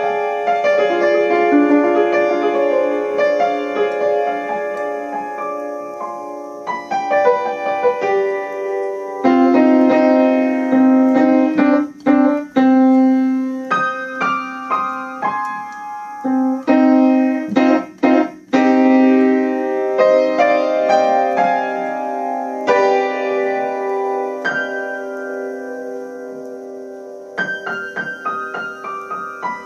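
Piano music in a slow tempo: sustained chords with single notes moving above them, broken by two short gaps about twelve and eighteen seconds in.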